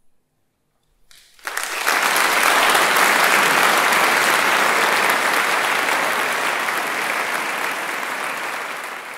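Audience applauding, starting suddenly about a second and a half in, holding steady, then slowly dying away near the end.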